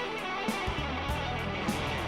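Live rock-soul band playing an instrumental passage: electric guitar over drums and bass, with drum hits about every half second.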